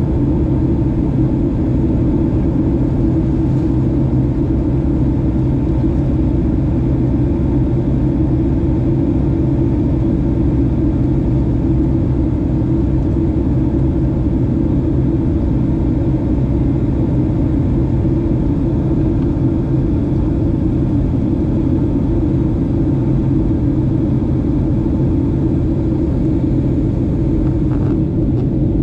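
Boeing 737-700 cabin noise in flight: a steady low rumble from its CFM56 engines and the air rushing past the fuselage, with a constant low hum, heard from a rear window seat.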